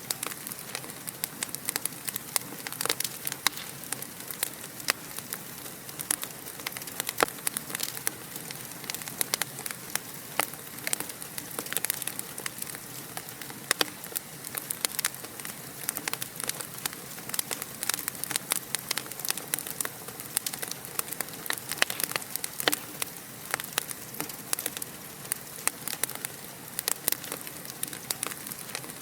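Fire crackling in a fireplace: a steady hiss with frequent, irregular sharp pops and snaps.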